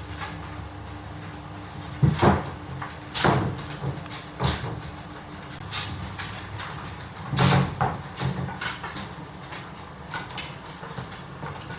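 Three-week-old miniature dachshund puppies squeaking and whimpering amid rustling, with several short loud sounds, the loudest about two seconds and about seven and a half seconds in.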